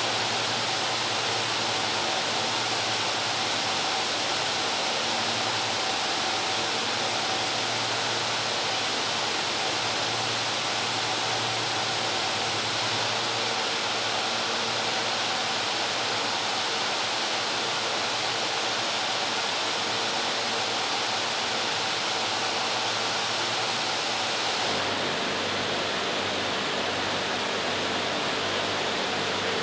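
Machinery on the floor of an industrial textile spinning mill, running steadily as a dense, even hiss with a few steady hums underneath. About 25 seconds in the sound changes abruptly and the highest part of the hiss drops.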